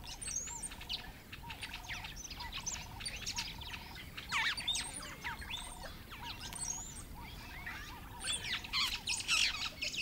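Savanna bird chorus: many birds chirping and twittering throughout, with a lower call repeated steadily, a little over half a second apart, underneath.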